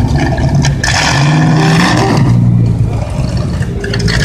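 Late-1950s C1 Chevrolet Corvette's V8 running loudly as the car pulls away slowly, the engine note rising and falling with light blips of throttle.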